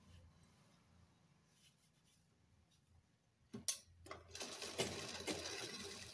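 Sewing machine stitching the folded hem of a kurti: a couple of sharp clicks about three and a half seconds in, then the machine runs steadily with rapid ticking of the needle for the last couple of seconds.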